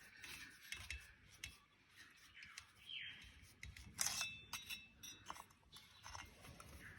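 Scattered light clicks, knocks and short scrapes of small metal chainsaw parts being handled and fitted during reassembly, the sharpest click about four seconds in.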